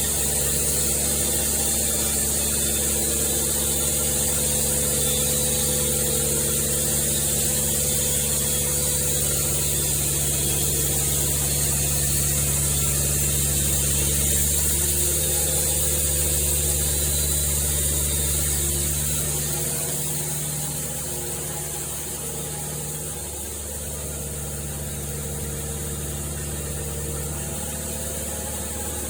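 An engine running steadily under a constant high hiss, easing off slightly about two-thirds of the way through.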